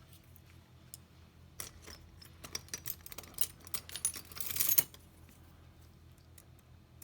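Small metal parts of a lock and hand tools clicking and clinking as they are handled. A quick run of sharp clicks starts about a second and a half in and gets busier and louder before stopping at about five seconds.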